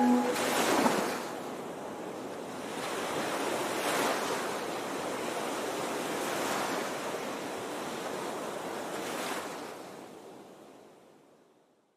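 Sea surf, with a wave surging in every two to three seconds; it fades out near the end.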